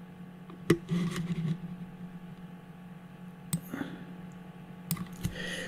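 A pause in a man's speech over a video-call microphone: a steady faint hum with three short sharp clicks and a brief faint breath or mouth sound about a second in.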